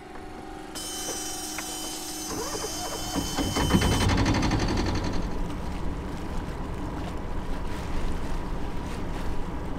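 Sailboat cockpit winch ratcheting, a fast run of clicks from about three seconds in lasting a couple of seconds, with a hiss just before it. After that, a steady rush of wind and water as the boat gets under way.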